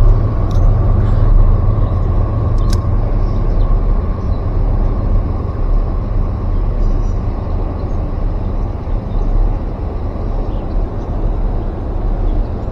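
Steady rushing of river rapids with a heavy low rumble, and two sharp clicks in the first three seconds.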